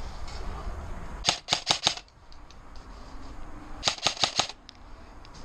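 Airsoft gun firing two short rapid bursts of about five shots each, a couple of seconds apart.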